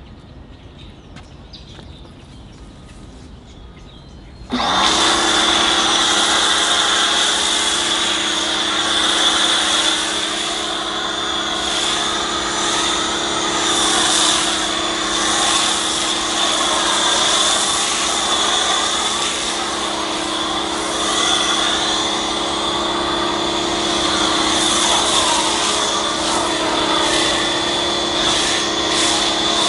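A pressure washer kicks on about four seconds in and runs steadily, with the hiss of an MTM PF-22 foam cannon spraying soap foam over a car.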